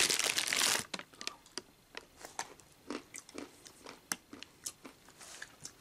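Plastic snack bag of roasted peanuts crinkling loudly as a hand rummages into it, for just under a second. Then a scatter of small clicks and crackles at a lower level.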